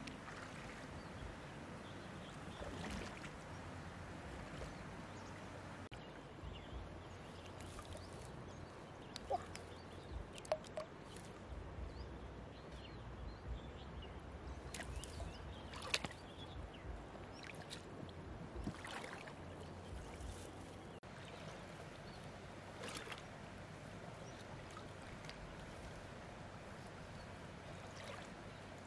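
Shallow water sloshing and splashing as a person wades and works her hands through it, with a few sharper splashes and drips.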